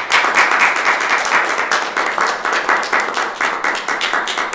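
Audience applauding at the end of a speech: many hands clapping in a steady, dense patter.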